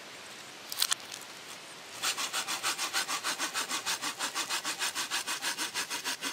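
Folding hand saw cutting through a forked wooden branch in quick, even back-and-forth strokes, about five a second, starting about two seconds in. There are a couple of light knocks just before.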